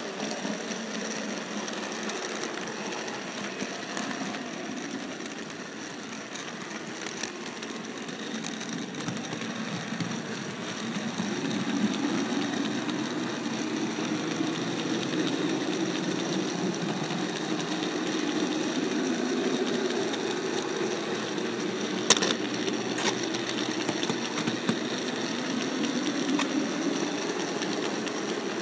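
Steady whirring hum of a model train's electric motor and wheels running on the rails, picked up from a camera riding on the train. It grows louder about eleven seconds in, and a couple of sharp clicks come a little over twenty seconds in.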